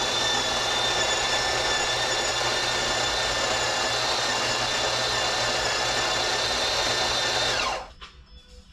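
Electric coffee bean grinder running steadily with a motor whine as it grinds beans for a double espresso shot. Near the end it is switched off and the motor winds down to a stop.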